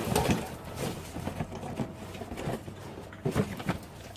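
Scattered light clicks and knocks of metal clutch parts and hand tools being handled while a clutch and pressure plate are fitted, with a few sharper taps a little after three seconds in.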